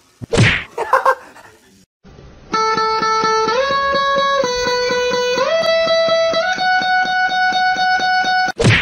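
Background music: a guitar holding sustained notes that step up in pitch over a steady quick pulse, starting about two and a half seconds in. Before it, a brief loud sound near the start and a short gap.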